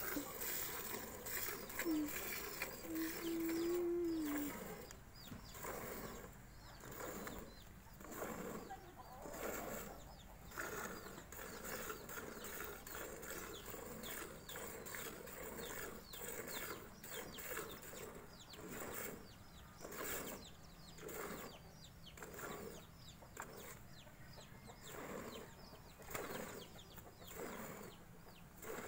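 Cow being milked by hand into a steel bucket: milk squirting into the pail in a steady rhythm. A short, steady animal call sounds about two to four seconds in.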